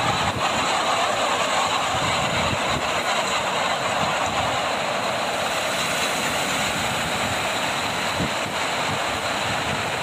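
Mediterranean surf washing and breaking against a rock breakwater: a steady rushing of water.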